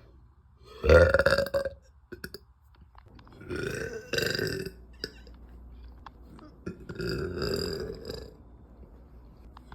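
A woman burping three times from a stomach full of carbonated soda, each burp drawn out for about a second or more. The first, about a second in, is the loudest.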